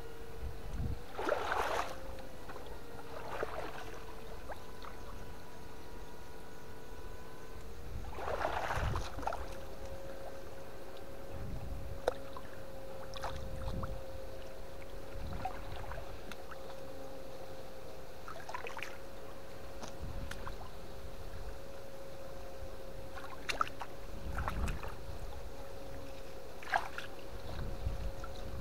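Water splashing in short bursts, several times, as someone wades and sweeps a net through a river, over a steady high-pitched whine, with a few sharp clicks.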